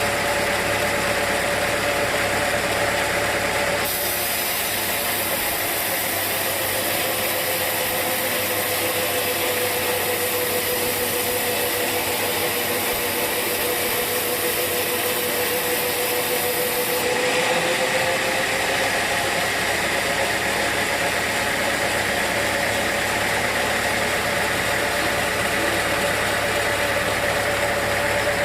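Sawmill machinery running steadily with a constant humming tone. Its pitch sags slightly for much of the middle and comes back up near the end.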